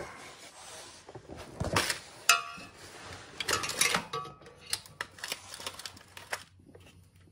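Scattered metallic clicks and scrapes of a screwdriver working at a small retaining clip on a mower's electric PTO clutch connector, with one sharp ringing clink a little over two seconds in.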